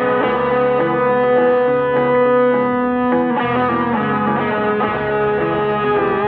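Music: a dense wall of sustained, effects-processed electric-guitar-like tones, with new notes coming in about three seconds in.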